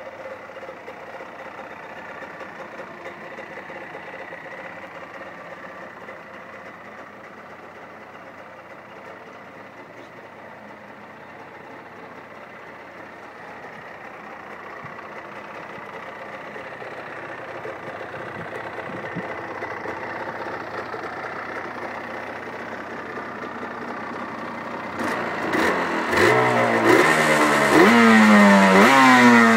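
1990 Kawasaki KR-1's two-stroke parallel-twin engine idling. Near the end it is revved repeatedly and gets louder, its pitch rising and falling with each blip of the throttle.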